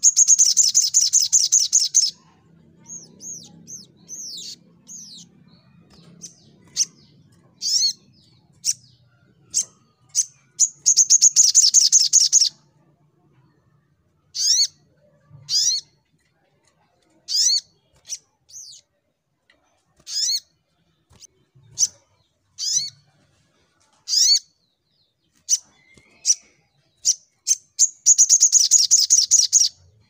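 Caged male sunbird (sogok ontong) singing: sharp, high chirps every second or two, broken three times by a loud, rapid trill lasting about two seconds.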